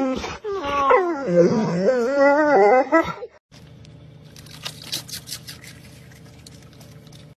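A pit bull-type dog making long, wavering howling whines, as if talking back, for about three seconds. Then, much quieter, a steady low hum with a few short crunches.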